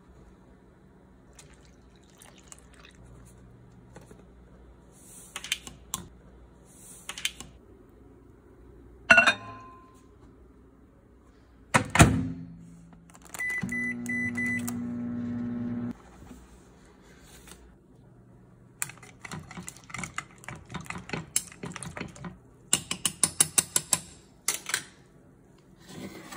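Kitchen handling sounds around a Hamilton Beach microwave oven: a ringing clack and a loud knock, then a short keypad beep and the oven's hum running for about two seconds before stopping. Near the end comes a fast run of clicks and taps.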